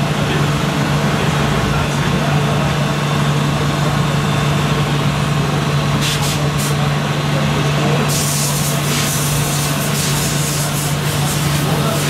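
Steady low diesel-like drone from a radio-controlled Mercedes-Benz Actros 8x8 tipper truck's engine sound module as it crawls through sand, over the chatter of voices.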